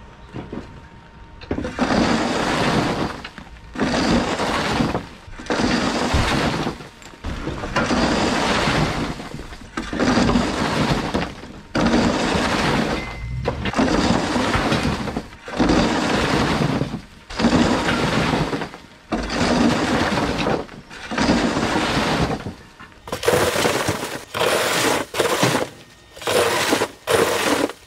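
Loads of broken plaster rubble sliding down a debris chute and crashing into a dumpster bag, about a dozen loads roughly every two seconds, each lasting about a second. Near the end the loads come shorter and quicker.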